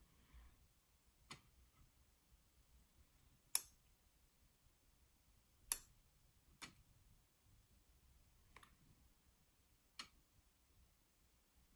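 Sharp, isolated clicks of ring-handled steel surgical instruments being worked while tying suture on a plastic practice board, six in all, the loudest about three and a half and almost six seconds in.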